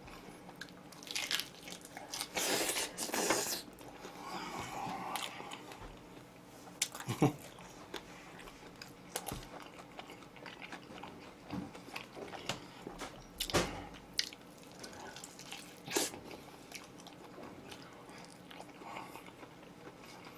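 A person eating oven-roasted chicken: bites and chewing come and go, with a few sharp clicks spread through.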